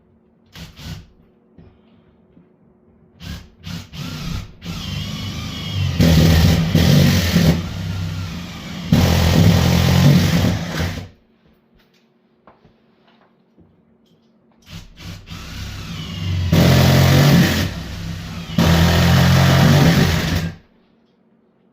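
Electric drill boring through the door in two runs of about six seconds each, its motor loading up as the bit cuts, with a few clicks and knocks before each run.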